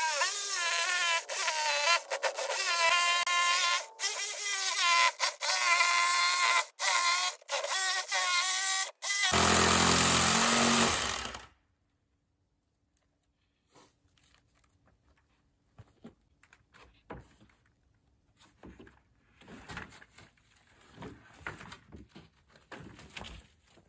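Electric jigsaw cutting 3/4-inch plywood, its motor whine wavering in pitch under load and stopping and restarting several times for about nine seconds, then a louder rough burst that cuts off abruptly. After that, faint knocks and scrapes of plywood sheets being handled.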